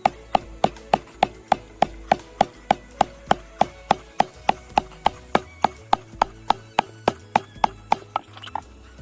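Background music with a fast, even percussive beat like a woodblock, about three knocks a second, over low held notes that change every second or so.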